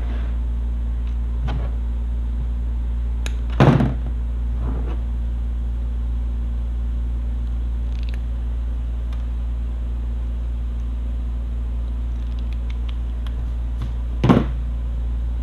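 A steady low hum, with two sharp knocks, one about four seconds in and one near the end, and a few faint clicks: hand tools such as crimpers and pliers being handled and put down on a plastic table while wires are spliced.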